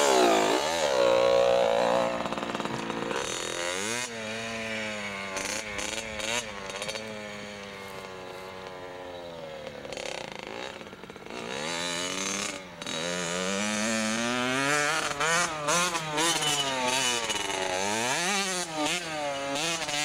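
Small dirt bike's engine revving as it pulls away and rides around a dirt track. The pitch rises and falls over and over with the throttle. It is loudest as the bike leaves close by in the first couple of seconds and quieter once it is farther off.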